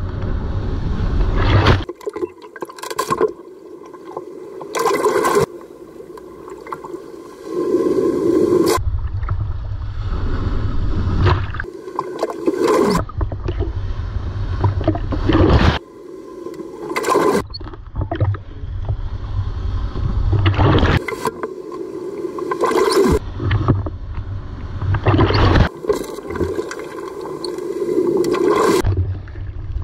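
Heavy shorebreak waves breaking and churning water slapping over a waterproof camera held at the waterline, with repeated sudden splashes and stretches of low rumble where the highs drop away.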